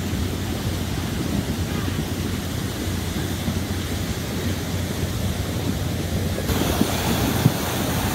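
Floodwater rushing steadily over a washed-out gravel driveway. About six and a half seconds in, it switches abruptly to a brighter, hissier torrent of muddy water pouring through the washed-out culvert gap, with a couple of brief knocks near the end.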